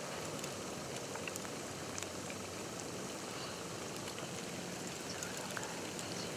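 Steady hiss of falling snow in woodland, with faint scattered ticks of flakes landing.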